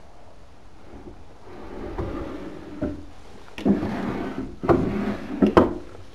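Wooden drawers sliding open and shut, with scraping runs and several sharp knocks as they hit their stops; the loudest pulls come past the middle.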